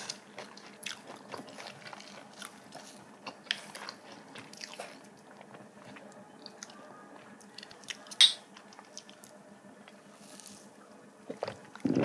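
People chewing spicy braised cod and bean sprouts close to the microphone, soft crunching and wet mouth sounds, with scattered light clicks of chopsticks against dishes and one sharper click about eight seconds in.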